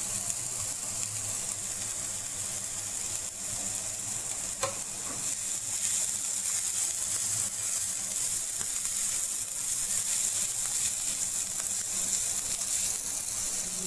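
Diced boiled potatoes and spring onions sizzling in hot oil in a nonstick pan as they are stirred with a silicone spatula: a steady high hiss with a faint tap about four and a half seconds in.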